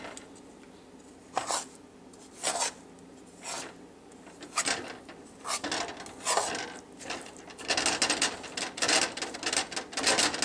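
Metal spatula scraping and stirring grainy sugar and butter around a dark pan as the caramel heats. The gritty scrapes come one at a time at first, then quicker and closer together in the last few seconds.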